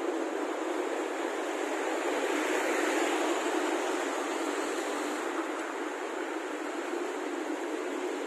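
Steady hiss of road traffic passing on a multi-lane city road, swelling slightly about three seconds in.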